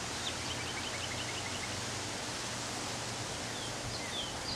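Steady outdoor background hiss with a faint low hum. Over it a small bird gives a quick run of short, high chirps in the first second and a half, then a few more scattered chirps near the end.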